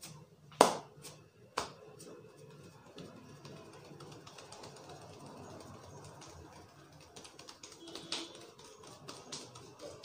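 A barber's hands tapping and patting a customer's head in a percussive head massage, a quick steady patter of light taps. Two loud sharp snaps come about half a second and a second and a half in.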